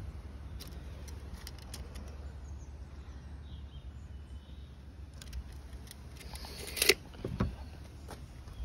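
Steel tape measure retracting: a short rattle of the blade winding in, ending in a sharp snap as it shuts into its case about seven seconds in, then a dull knock. Light handling clicks and a steady low background rumble run underneath.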